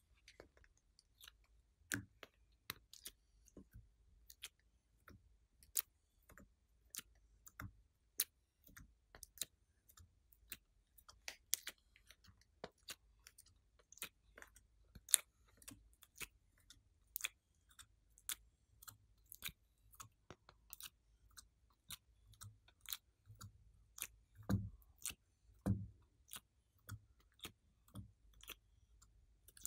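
Soft, irregular clicks and taps as clay pieces are pried out of a cube mold tray one at a time and set down, with fingernails ticking against the mold. Two duller knocks come late on.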